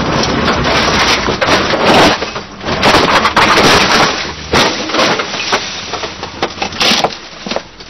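Rally car crashing off the road, heard from inside: a dense run of crunching, splintering impacts and scraping. About halfway through the low rumble drops away, leaving scattered knocks and rattles.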